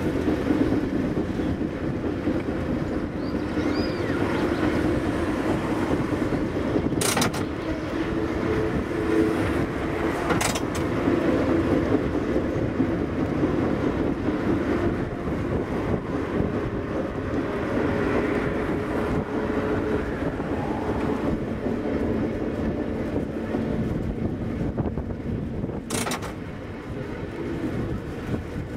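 Vintage 1904 ASEA-built SSB A2 tram running along street rails: a steady hum and wheel-on-rail rumble, with three sharp clicks spread through it.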